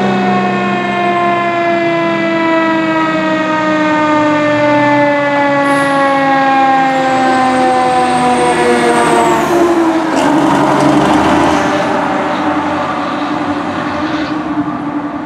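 Fire engine siren sounding as the truck approaches, its pitch falling slowly, then dropping sharply as it passes about ten seconds in. The truck's engine rumble follows as it drives away.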